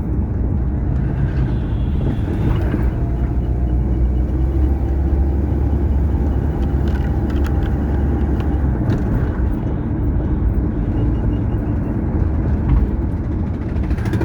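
Car driving along a highway: a steady, loud low rumble of road and engine noise, with a few faint ticks.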